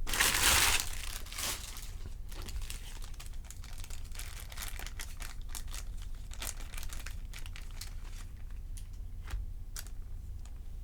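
A trading-card pack wrapper being torn open in a loud rip about a second in, followed by crinkling of the wrapper and cards being handled, with scattered light clicks over a low steady hum.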